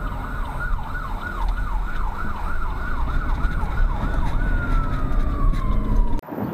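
Emergency vehicle siren in a fast repeating up-and-down yelp, about three sweeps a second. About four seconds in it changes to one long slow falling wail, then cuts off suddenly near the end, over a steady low rumble.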